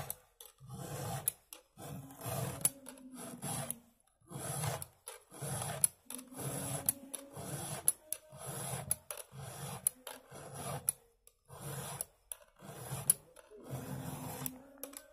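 Round chainsaw file rasping across the cutter teeth of a chainsaw chain in steady, rhythmic push strokes, about one or two a second: the chain being hand-sharpened.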